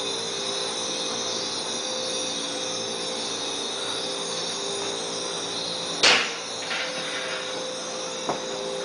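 Steady chorus of summer cicadas droning. About six seconds in comes one sharp knock, then a few lighter footsteps on concrete station stairs near the end.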